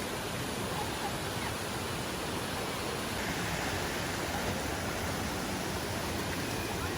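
Steady rushing of a mountain stream, its water running over rocks.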